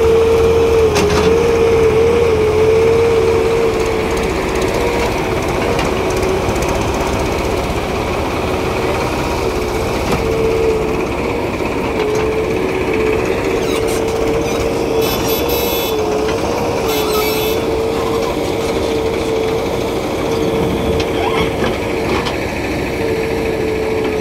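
Diesel engines of a farm tractor and a JCB backhoe loader running at close range while the backhoe loads soil into the tractor's trolley. A steady drone that dips slightly in pitch now and then.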